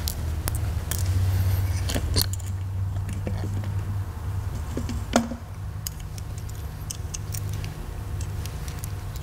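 Scattered light metallic clicks and clinks as hands handle an aluminium EFI throttle body and work its throttle linkage, with a louder click about five seconds in, over a steady low hum.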